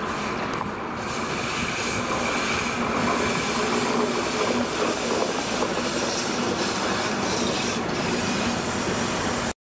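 DR class 114 diesel locomotive running light through the station, its engine steady and growing louder about a second in as it approaches, with a thin squeal from the wheels on the curved track.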